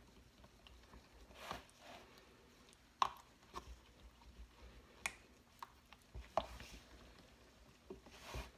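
A stirring utensil mixing charcoal colorant into soap batter in a plastic measuring jug: faint, scattered clicks and taps against the jug's plastic sides, with a couple of softer scraping sounds.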